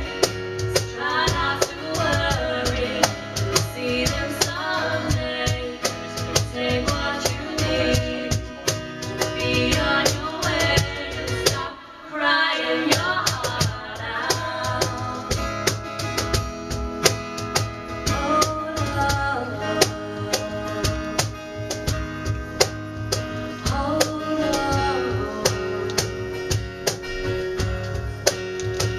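Live song: a woman singing into a microphone, backed by strummed acoustic guitar and a cajón played by hand. The music drops away briefly about twelve seconds in, then carries on.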